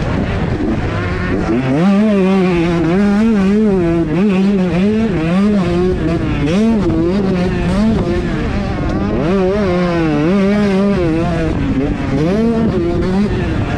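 125cc two-stroke motocross bike engine racing, revving up and down every half second or so as the throttle is worked and gears change, with longer climbs in revs about two seconds in and again about nine seconds in.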